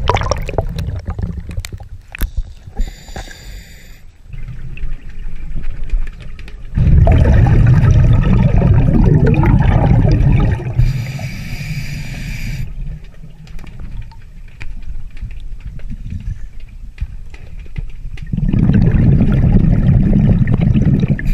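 Scuba diver breathing through a regulator underwater: twice a short hiss as he inhales, each followed by a few seconds of loud, low bubbling as the exhaled air escapes.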